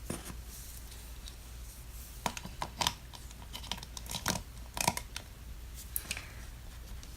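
Snap-on plastic clothing and accessory pieces of a Minnie Mouse Snap n Pose toy figure being handled. There are scattered light clicks and brief rustles, several of them close together around the middle.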